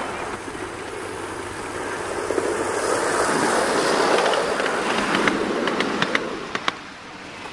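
Ride-on miniature railway train, a small mining locomotive hauling two passenger cars, rolling past close by. It grows louder, then the wheels click sharply several times over the rail joints as the cars go by, and the sound falls away.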